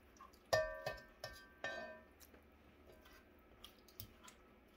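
A spoon knocked several times against the rim of a dish, each knock ringing briefly at the same clear pitch; three sharp knocks come in the first two seconds and a lighter one near the end.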